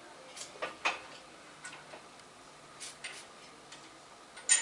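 A few light, irregular metallic clicks and clinks as small cast-iron vise parts, such as the lead screw keeper, are handled and set in place. The sharpest click comes near the end.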